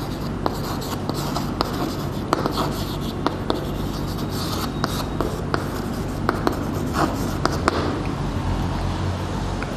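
Chalk writing on a blackboard: scratchy strokes with frequent small taps as the letters are formed, over a steady low hum.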